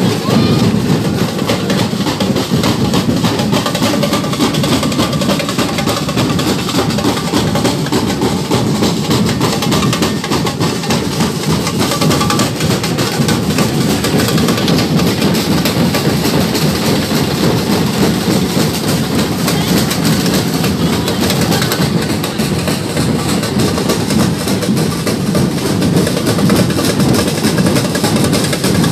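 Batucada samba percussion ensemble playing loud, dense drumming that keeps going without a break.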